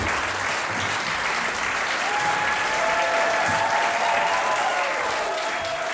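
Audience applauding, with a few held voice-like calls rising over the clapping about two seconds in.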